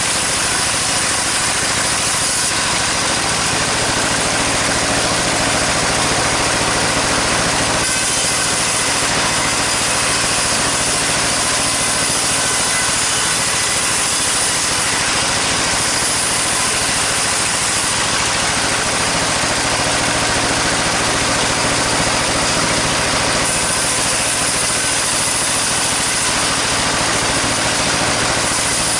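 Sawmill saw and its engine running steadily while sawing long sengon timber: a constant engine drone under a dense high hiss, the hiss brightening and dimming in stretches every several seconds.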